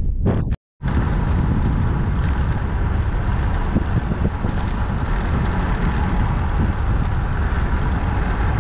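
Steady wind noise buffeting the microphone, heavy in the low end, with a brief dropout just under a second in.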